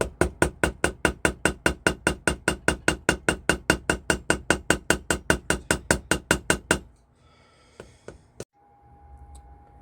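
A small hammer tapping quickly and lightly on a silver wire rivet, about five evenly spaced blows a second, peening the rivet head to set it. The tapping stops about seven seconds in, followed by a single sharp click.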